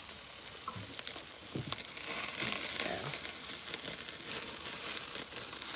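Vegetables sizzling on the grate of a charcoal grill: a steady hiss with many small crackles and pops.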